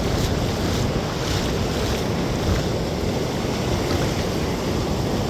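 Ocean surf washing on the beach, with wind rumbling on the microphone.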